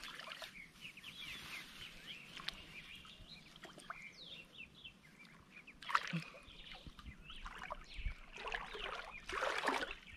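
Small birds chirping over and over, with water sloshing and splashing around hands groping in shallow creek water, loudest about six seconds in and again near the end.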